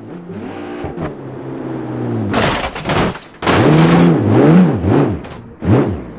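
Sports car engine revving: the pitch climbs over the first couple of seconds, two loud blasts follow, then several quick revs up and down near the end.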